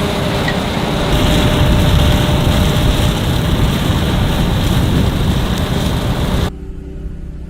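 Heavy farm machinery running: a loud, steady engine-and-machinery din that drops abruptly to a quieter engine hum about six and a half seconds in.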